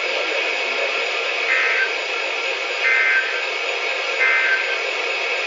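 Weather radio reception hiss with three short bursts of two-pitch warbling data tones about a second and a half apart: the EAS (SAME) end-of-message code that closes the flood warning broadcast.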